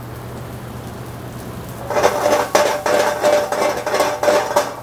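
Steel sauté pan shaken over a gas burner to toss pasta in hot oil: after a steady sizzle, the pan clatters and scrapes against the range's metal grate from about two seconds in, with a ringing metallic tone, for nearly three seconds.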